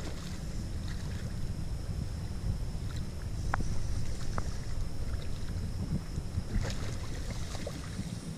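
Wind buffeting the microphone, a steady low rumble, with a couple of faint light clicks midway.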